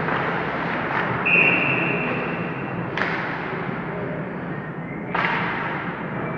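Ice hockey rink ambience: a referee's whistle blows one steady blast of about a second and a half, the loudest sound here, and three sharp knocks ring against the rink boards, the last near the end.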